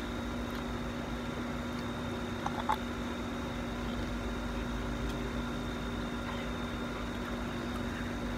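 A steady background hum, with a constant low tone and a faint high whine, and two small clicks about two and a half seconds in.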